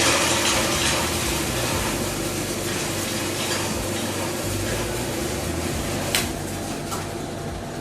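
Cocoa-bean winnowing machine switched on and running. It starts abruptly with a steady rushing hiss over a low motor hum as it cracks roasted beans and strips off the shells to leave the nibs, with a sharp click about six seconds in.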